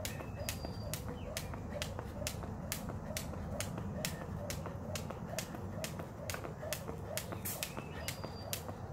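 Jump rope slapping a concrete patio at a steady pace, nearly three sharp slaps a second.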